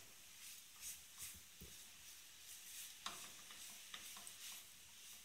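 Spoon stirring and scraping a thick grated-coconut, sugar and milk mixture in a cooking pan, faintly, with soft irregular scrapes and a light sizzle as the sugar melts into the coconut.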